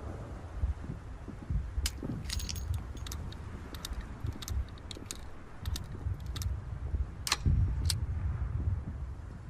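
Metallic clicks and rattles of a MAS Mle. 1892 revolver being handled, a string of sharp separate clicks over about six seconds, the loudest near the end, over a low rumble.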